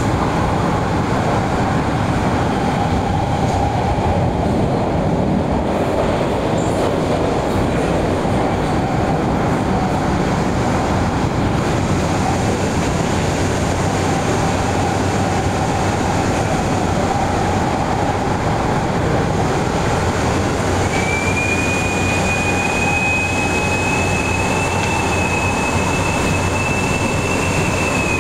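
Cabin noise of an MTR Adtranz-CAF electric multiple unit running at speed: a steady rumble of wheels on rail. About three quarters of the way through, a high, steady squeal comes in and rises slightly in pitch.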